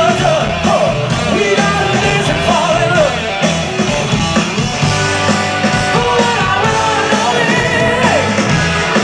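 Live rock band playing loudly: a male singer over electric guitar, bass guitar and keytar with a steady beat.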